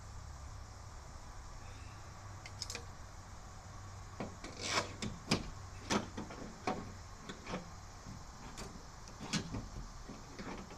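Door window glass of a 1976 Chevy Blazer being pushed and worked by hand in its channel: irregular knocks, clicks and short scrapes starting about four seconds in, over a steady low hum.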